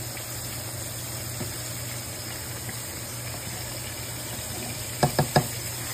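Stovetop cooking: a saucepan of rice at a bubbling boil and pork chops frying in a pan, making a steady hiss. Three quick sharp knocks come about five seconds in.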